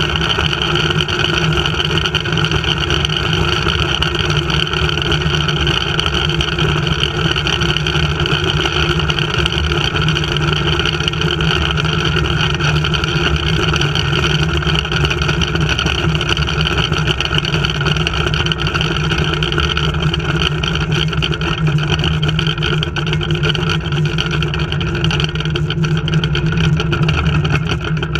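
Steady mechanical drone of a zipline trolley being hauled back along its steel cable, the pulley wheels and haul line running at an even pace.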